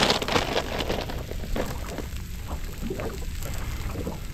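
Plastic bag of shredded cheese crinkling and rustling as it is opened and handled, densest in the first second, then in scattered crackles over a steady low rumble.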